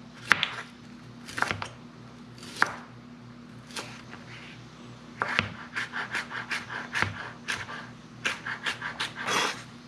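Chef's knife cutting vegetables on a plastic cutting board: a few single cuts about a second apart, then a quicker run of chops, about four a second, over the last four seconds.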